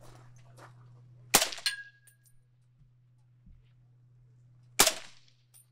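Two suppressed .308 rifle shots about three and a half seconds apart, fired through a prototype .30 cal suppressor, each a sharp crack with a short tail; a thin ringing tone hangs briefly after the first.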